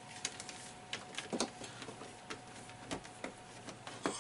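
Scattered small clicks and knocks of cables being handled and pushed into plastic cable clips, the loudest about a second and a half in and near the end, over a faint steady hum.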